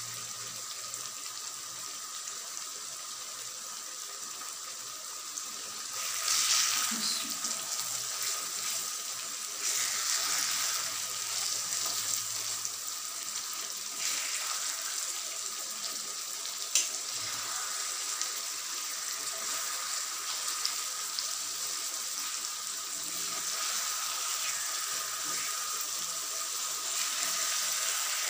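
Masala fish curry sizzling and bubbling in an open pan while a metal spoon stirs and scrapes through it. The sound swells louder a few times as it is stirred, and there is one sharp clink of the spoon on the pan a little past halfway.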